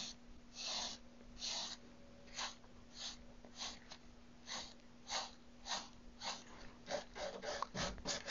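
Paintbrush swishing over the wooden cabinet in short back-and-forth strokes, faint, about a dozen strokes coming a little faster near the end.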